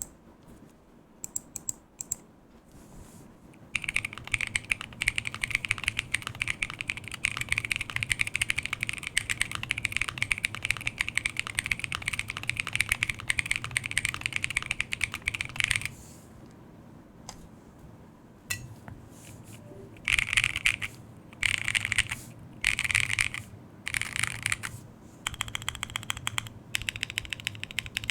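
Typing on a Simpler60 mechanical keyboard with lubed and filmed Epsilon switches, a polycarbonate plate and Kitty Kat keycaps. A few single key presses come first, then rapid continuous typing from about four seconds in. It pauses near the middle, comes back in short bursts, and ends in steady typing.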